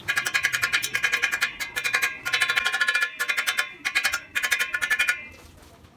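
Music: a fast run of quick repeated high notes that cuts off about five seconds in.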